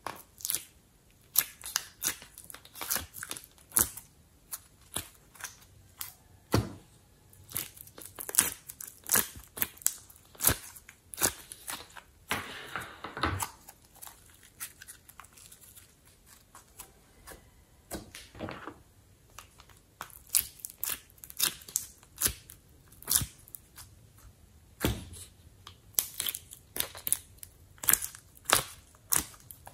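Hands squeezing and working slime: dense, irregular sticky clicks and pops, with a few longer crackling squelches.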